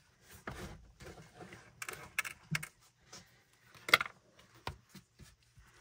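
Small plastic and metal parts being handled on a desk: a speaker's plastic battery cover and a screwdriver. Scattered light clicks, taps and rattles, with one sharper click about four seconds in.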